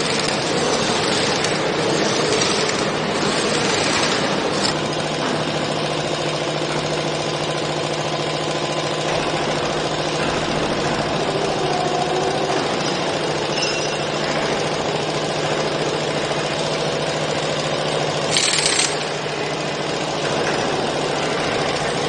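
Heavy machinery in a concrete pole factory running steadily, a constant mechanical din with a low hum under it, and a short hiss near the end.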